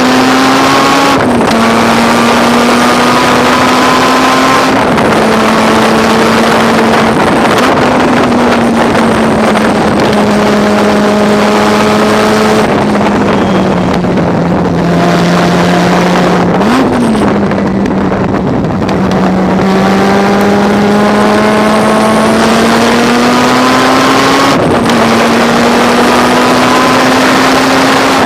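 Mazda RX-7 race car's rotary engine at racing speed, heard from on board. The engine note climbs and drops back at each gear change, then falls off through the middle as the car slows. A short blip comes about two-thirds of the way in, and the note climbs again with another gear change near the end. Wind buffets the microphone throughout.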